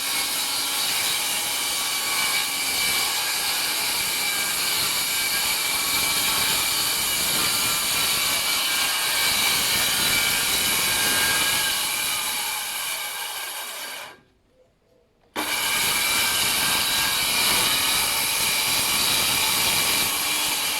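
Electric saw cutting through plywood, a steady whine with the rasp of the blade in the wood. It breaks off for about a second partway through, then carries on.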